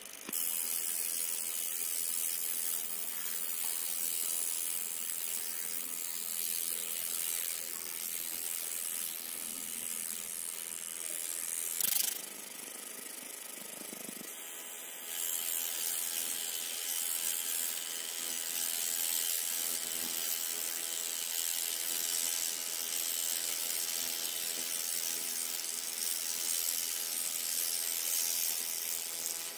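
Laser cutting machine working a copper plate: a steady high hiss from the beam on the metal, with faint steady machine hum beneath. A brief louder burst comes about twelve seconds in, then a quieter spell of a few seconds before the hiss resumes.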